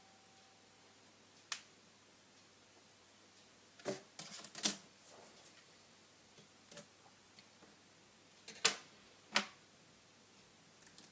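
Sharp small clicks and taps of tools and smartphone parts being handled during a screen repair: one click, then a quick cluster of clicks, then a few single louder clicks spaced a second or so apart.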